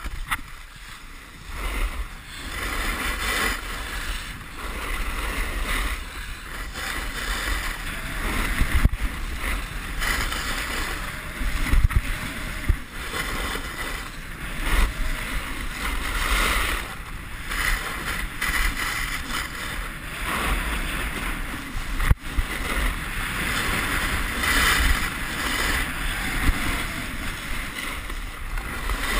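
Snowboard sliding down a groomed ski run, its edges scraping the snow in swells with each turn, with wind rushing over the GoPro's microphone and a few sharp knocks.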